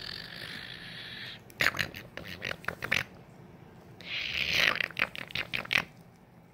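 Small dog snapping its jaws at the air in play: two runs of quick teeth clicks, about a second and a half in and again near the end, between stretches of hiss.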